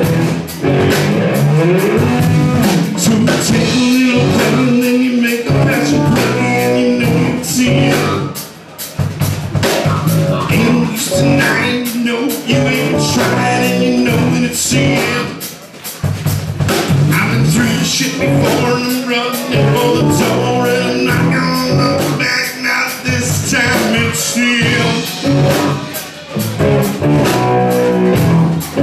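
Live rock band playing a song: drum kit, electric guitar and sung vocals, loud throughout with a couple of brief dips.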